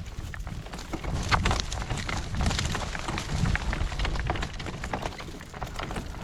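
Gale-force wind buffeting the microphone as a low rumble, over irregular clicks and clatter from a horse walking in harness.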